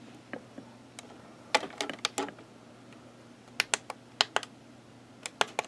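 Plastic buttons or keys being clicked, in single presses and quick runs of several, over a faint steady hum.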